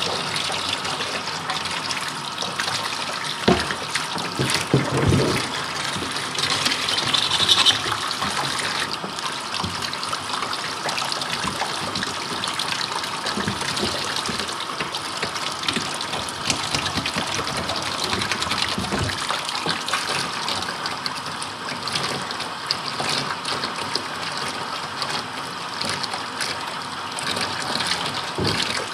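Hot water running steadily and splashing over a deer skull as it is rinsed clean, with a few knocks between about three and eight seconds in.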